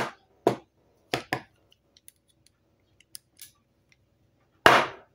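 Sharp clicks and knocks from an LED torch being pressed and handled against a tabletop: several in the first second and a half, a few faint ticks after, and one loud knock near the end.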